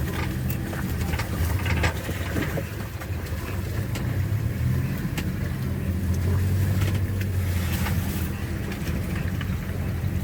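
Steady low hum of an ambulance's engine and road noise as it drives along a rough rural road, heard from inside the cab, with frequent small knocks and rattles.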